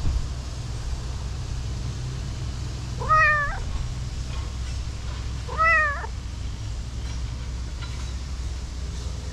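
Orange-and-white cat meowing twice, about three seconds in and again two and a half seconds later, each meow a short call that rises and falls in pitch.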